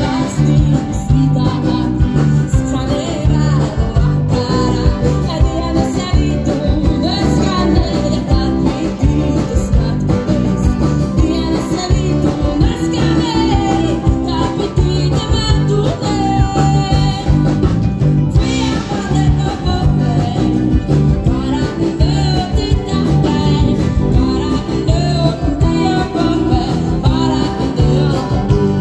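Music: a song with singing over guitar and a steady beat.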